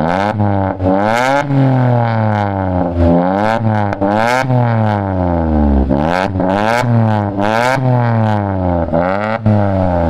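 Tata Altroz 1.2-litre three-cylinder engine running on CNG, blipped over and over through an open aftermarket valvetronic exhaust, its pitch rising and falling one to two times a second with sharp cracks at several of the peaks. Really loud.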